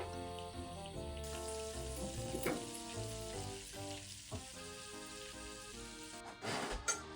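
Butter and garlic sizzling in a frying pan with a steady hiss, crackling louder for a moment near the end.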